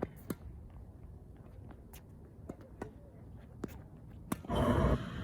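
Tennis balls being struck and bouncing during a rally, a scatter of sharp knocks at uneven spacing over a low rumble. A loud burst of noise lasting about half a second comes about four seconds in.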